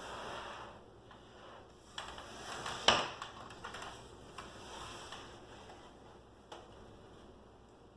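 Light clicks and rustling from handling a cordless drill, screws and a wooden chair, with one sharp knock about three seconds in and a smaller click near the end; the drill motor is not running.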